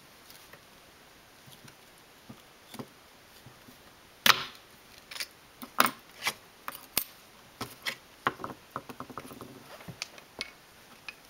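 Metal hobby knives and loose blades clicking and clattering as they are handled and set down on a tabletop. The sharp clicks are scattered, the loudest about four seconds in, with a quick run of small clicks near the end.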